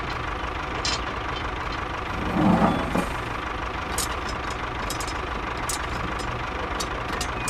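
Tractor engine idling steadily, with a brief louder sound about two and a half seconds in and a few light clicks in the second half.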